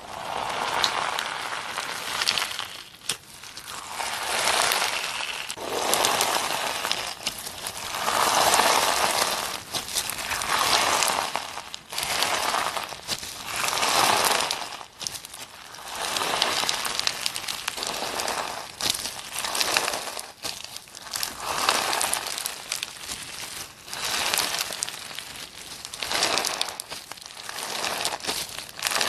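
Slime being squeezed and kneaded by hand, a crinkly, crackling sound with many small pops that swells and fades in waves about every two seconds.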